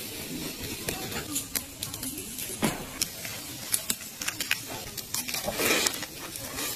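Food cooking over a small charcoal grill: a low sizzle with scattered sharp crackles and pops, and a couple of brief louder hissing swells, the second near the end.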